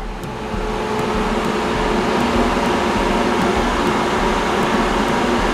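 Imusa Easy Fry 4.2 L air fryer running while it preheats: a steady fan whoosh with a faint hum, growing louder over the first couple of seconds and then holding even.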